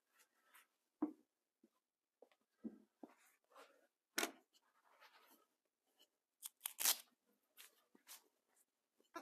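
Motorcycle engine crankcase half and small parts being handled on a workbench: scattered light knocks and taps with brief rustles in between, the loudest about seven seconds in.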